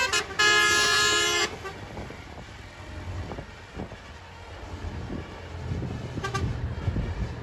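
Tour bus telolet horn, a Basuri-type multi-tone musical air horn. It plays a few quick staccato notes, then a held chord that cuts off about a second and a half in. A low engine rumble follows and grows louder near the end, with one brief horn blip.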